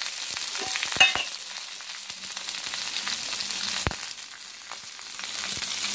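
Chopped onion frying in hot oil in a kadai, a steady sizzle. A spatula knocks against the pan a few times, most sharply about a second in.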